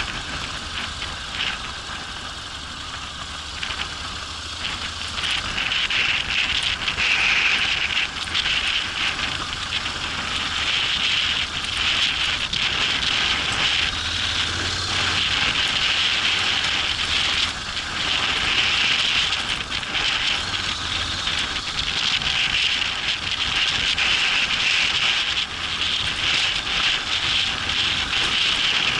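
Honda NC750X's parallel-twin engine running at low revs, mostly buried under a crackling hiss of tyres on a dirt track and wind on the action camera's microphone. The noise grows louder a few seconds in as the bike picks up speed.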